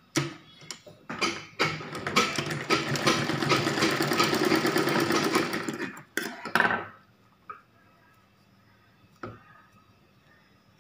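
Sewing machine stitching through cloth: a fast run of needle strokes lasting about five seconds, with a few clicks just before and after it. It then falls quiet apart from two faint clicks.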